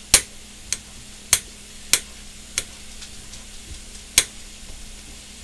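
Knife slicing chorizo on a glass cutting board, the blade clicking sharply against the glass with each cut: five strokes about every 0.6 s, then a pause and one more.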